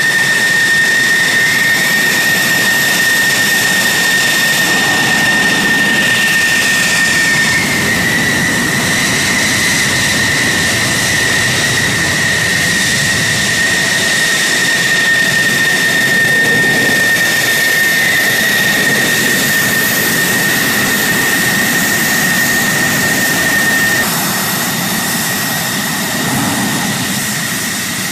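F-16 fighter's single turbofan jet engine running steadily while taxiing, with a strong high-pitched whine over its rushing exhaust noise. A little quieter from about 24 s in.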